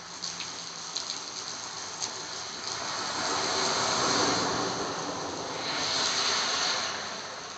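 Car tyres hissing and splashing through standing water on a rain-flooded road, over steady rain. One car's splash swells about halfway through and another passes near the end.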